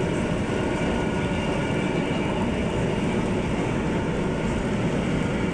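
Steady running rumble of an MRT-3 light rail train, heard from inside the car as it travels.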